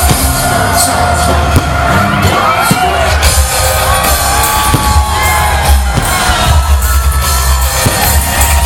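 Loud live band music over a large outdoor sound system with heavy bass, with the crowd whooping and yelling along.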